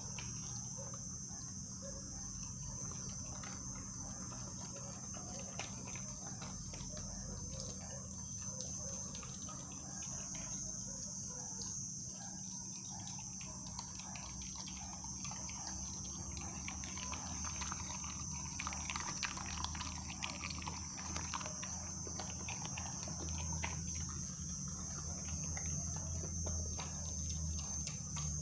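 An American pit bull terrier puppy chewing and crunching raw chicken on the bone from its bowl, a scatter of short cracks and clicks. Crickets trill steadily and high-pitched throughout.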